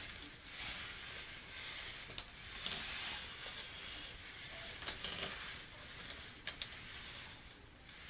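Geared-down RC servos in a 3D-printed robot dog's legs running in short spells, about one a second, as the legs shift the body around, with a few faint clicks.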